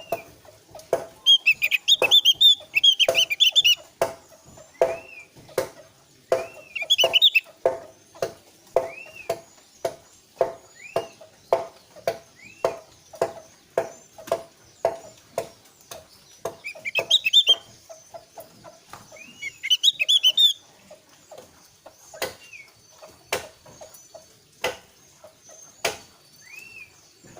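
Javan grey-throated white-eye (opior Jawa) song used as a lure call: several bursts of fast, high twittering and short arched chirps, over an even run of short low knocks about twice a second.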